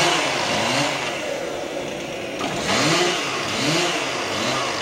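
Small engine revving in short throttle blips, its pitch sweeping up and back down several times over a loud running drone: a chainsaw being revved.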